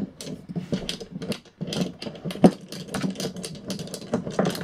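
Handle locking knob on a Spear & Jackson electric lawnmower being twisted round onto its bolt: a run of irregular ratcheting clicks and scrapes, the sharpest about two and a half seconds in.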